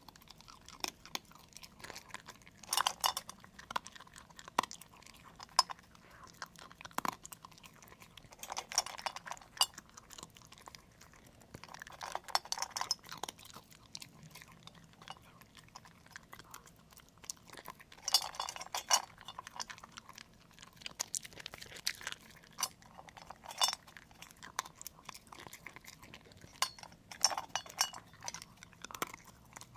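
A black-and-tan Shiba Inu eating from a bowl: crunching and chewing its food in bursts every few seconds, with light clinks of food and teeth against the bowl.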